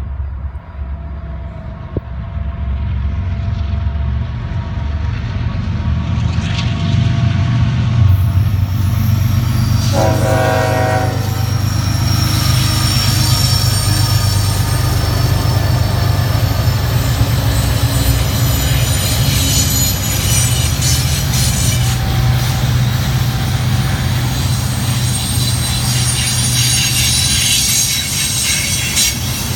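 Norfolk Southern freight train passing close by: diesel locomotives running and growing louder as they arrive, with one short horn blast about ten seconds in. Crude oil tank cars then roll past with steady wheel noise, clacking and some high squealing.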